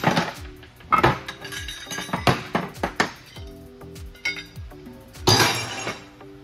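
Steel gears, rings and housing parts of an Eaton Fuller 10-speed truck transmission clinking and clanking as they are handled and set down during teardown, a string of sharp metal knocks with a louder clatter about five seconds in. Background music plays underneath.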